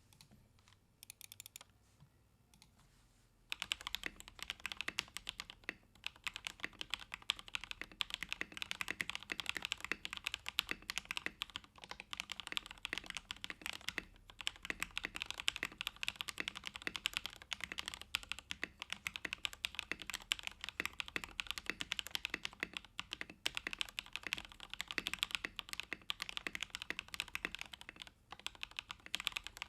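Fast, steady typing on an RK84 mechanical keyboard with lubed Zuoce PP White switches, XDA-profile keycaps, a tape mod and lubed, holee-modded stabilizers. A few faint clicks come first, and the continuous typing starts about three and a half seconds in, with brief pauses.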